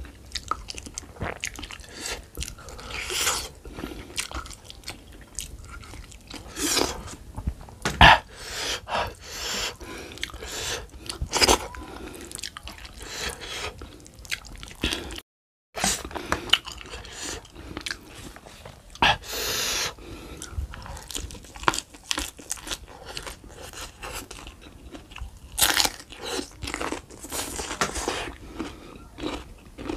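A person biting and chewing meat and skin from a stewed beef foot, with many short wet clicks and smacks in an irregular rhythm. The sound cuts out to silence briefly about halfway.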